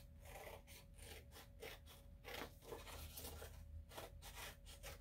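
Scissors cutting through folded construction paper: a faint, irregular run of short crisp snips.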